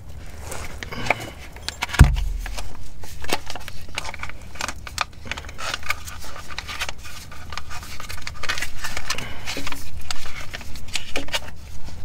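Clicks, rattles and scrapes of hand work at the car's rear differential housing, with one hard knock about two seconds in.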